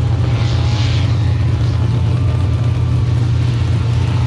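Mud-racing truck's engine running at low revs, a steady low rumble.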